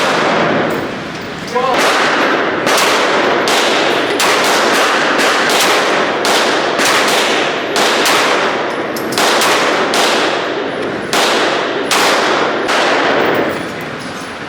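Gunshots at a shooting range: a steady string of about twenty shots, one every half second to a second, each ringing out with a long echo.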